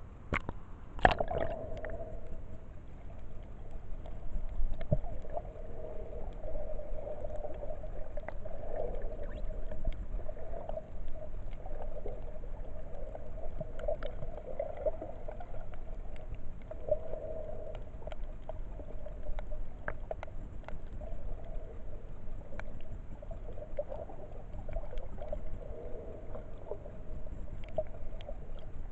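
Sea water heard through a submerged camera housing: a splash as it dips under about a second in, then a muffled, steady underwater wash with a wavering hum and scattered faint clicks.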